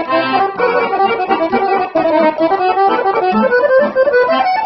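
Dallape piano accordion playing a fast Serbian kolo dance tune: quick runs of melody notes over a steady rhythmic accompaniment.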